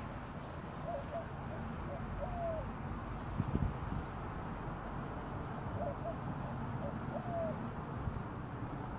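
A dove cooing, one short phrase of quick notes ending in a longer drawn-out coo, given twice about five seconds apart, over a low rumble of background noise. A low thump about three and a half seconds in.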